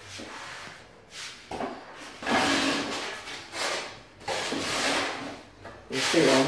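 Trowel scraping and stirring tile adhesive in a bucket: several rasping strokes, under a second each, the last the loudest.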